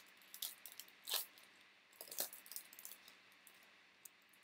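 Faint crinkling of a foil trading-card pack wrapper being torn open and handled, in a few short rustles about half a second, one second and two seconds in, with a couple of light ticks later.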